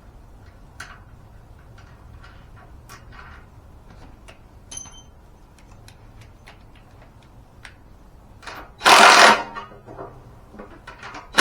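Small metal clicks and taps as a washer and nut are fitted onto the front wheel axle of a floor jack. About nine seconds in comes one loud, dense burst lasting under a second.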